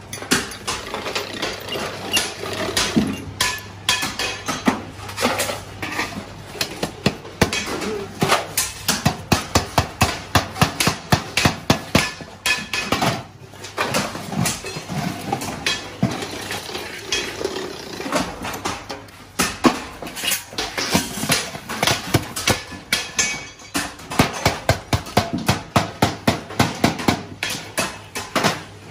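A hammer striking galvanized sheet-metal buckets in quick runs of about three blows a second, with metallic clanks as the buckets are handled.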